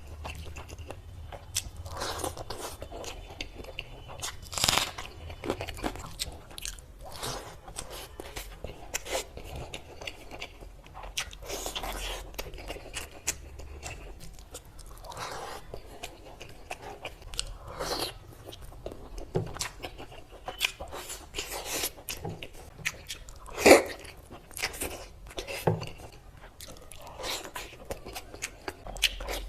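Close-miked eating: someone biting into and chewing crunchy food, with irregular crunches and crackles throughout and two louder bites, about five seconds in and about twenty-four seconds in.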